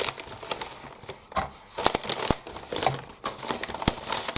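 Packaging being handled and opened by hand: crinkling with scattered sharp clicks and taps.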